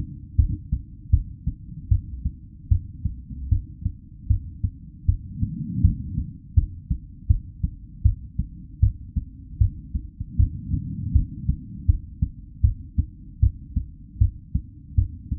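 Real human heartbeat at a normal rate: steady, evenly spaced low beats a little faster than one a second. A low rushing swell rises and fades about every five seconds.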